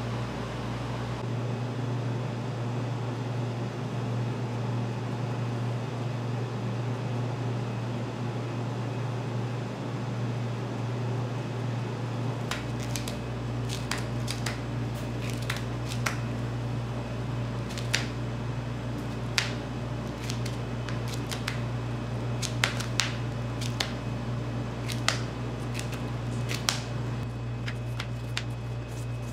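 Steady low hum, with scattered light clicks and taps from about halfway through.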